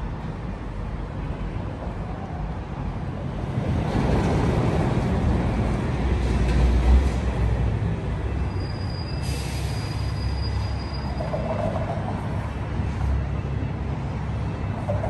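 Light rail tram passing on a city street: a low rumble that swells a few seconds in, then a thin, steady, high wheel squeal lasting about two seconds near the middle, over general street noise.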